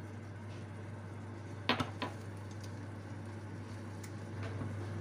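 Cooking at a frying pan of tomato sauce: two sharp knocks close together just under two seconds in, then the quiet scrape of a wooden spoon stirring the sauce, over a steady low hum.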